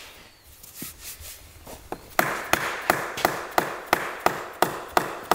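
Regular sharp metal clicks, about three a second, starting about two seconds in, from a hand tool being worked on a main bearing cap as it is fitted over the crankshaft in the engine's crankcase.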